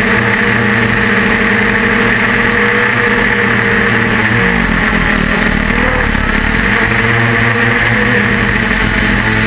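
Multirotor drone's motors and propellers buzzing steadily in flight, as heard by the camera on board, with the pitch changing about four and a half seconds in and again a few seconds later as the motor speeds change.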